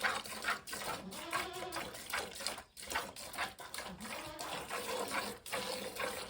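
Hand milking a cow: streams of milk squirting from the teats into a pail in quick, irregular spurts.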